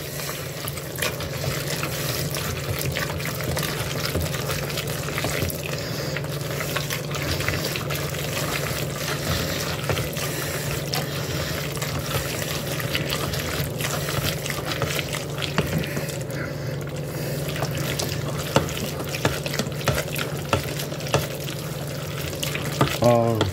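A spoon stirring cooked macaroni and melted cheese in a pot, with wet squelching and many small clicks and scrapes of the spoon against the pot, over a steady low hum.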